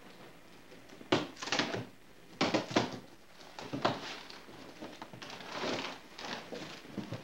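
Large cardboard box being opened by hand: a run of short scraping and rustling sounds from the taped flaps, several in a row with short gaps, and a longer rustle about halfway through.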